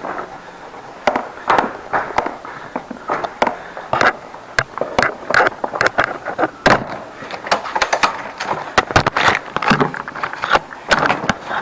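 Wheeled plastic tool cart knocking against the stair steps, with footsteps: an irregular run of sharp clacks and thumps, about two or three a second.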